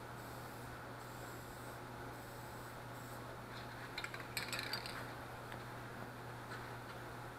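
Quiet workshop room tone with a steady low hum, and a brief rattle and clatter of small hard objects about four seconds in.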